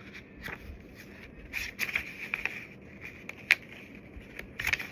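Scattered light clicks and rustles of small packaging and a product being handled, with one sharper click about three and a half seconds in.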